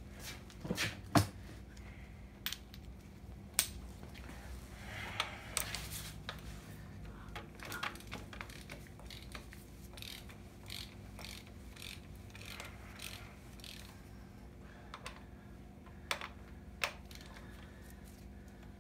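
Hand tools working bolts on a diesel engine: socket-wrench ratchet clicks and scattered metal clinks and knocks, the loudest knock about a second in.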